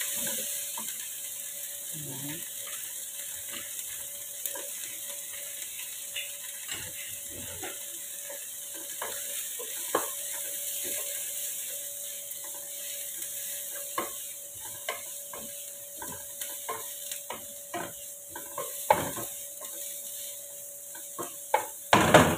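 Diced onion, garlic, green peas and green pepper sizzling in a nonstick pan while a wooden spatula stirs them, knocking and scraping against the pan again and again. The knocks come thicker and louder near the end.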